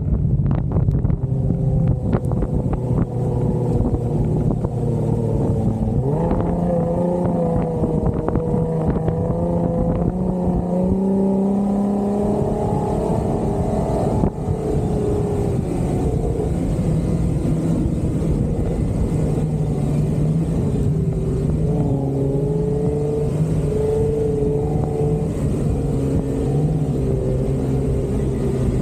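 Off-road 4x4's engine running under varying throttle, its pitch climbing and dropping several times as it revs up and eases off.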